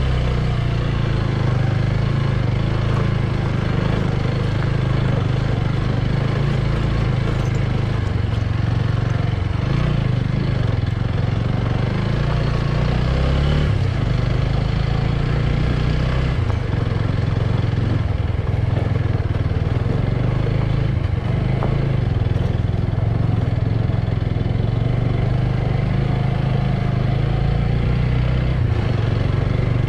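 A motorbike engine running steadily under way, its pitch shifting a little as the throttle changes.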